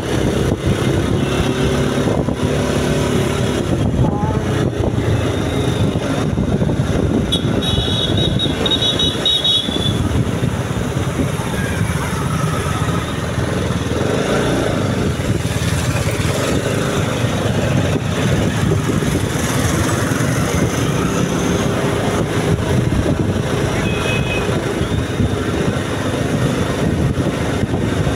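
Motorcycle riding in traffic: steady wind rush on the microphone over the engine drone. A high horn tone sounds for about two seconds around eight seconds in, and a shorter one near the end.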